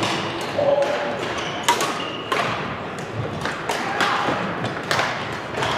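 Badminton rackets hitting shuttlecocks on several courts at once, giving a string of irregular sharp knocks and thuds.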